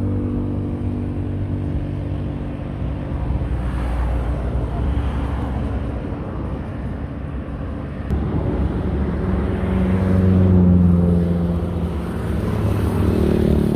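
Road traffic passing on a highway: the steady hum of heavy vehicle engines with tyre noise, growing louder about ten seconds in and again near the end.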